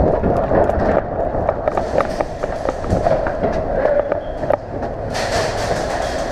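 Footsteps and rattling gear of an airsoft player sprinting, heard from a body-worn camera, with many quick knocks and a brighter rustling hiss from about five seconds in.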